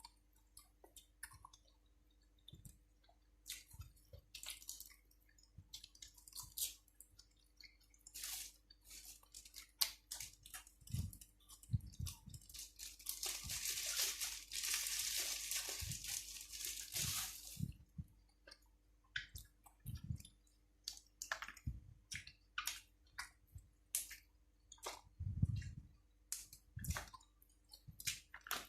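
A person chewing food up close, with irregular wet smacks and crisp crunches of raw vegetables eaten with spicy pork salad. About halfway through there is a steady hiss lasting about five seconds.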